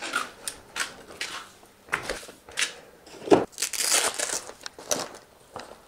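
Handling noise from a front derailleur and its parts box: irregular crinkling, rustling and light clicks, with a thud a little past three seconds and a longer rustle just after.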